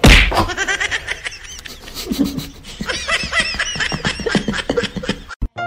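A person laughing off-camera in a string of quick, high giggles that come thickest over the last couple of seconds, after a sudden loud burst of noise at the very start.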